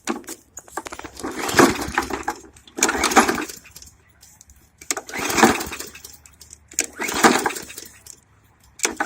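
Hyper Tough push mower's OHV engine being pull-started by its recoil cord about five times, one pull every two seconds or so, each a short whirring rasp. It turns over but does not catch and run, which the owners put down to a flooded engine or a carburettor problem.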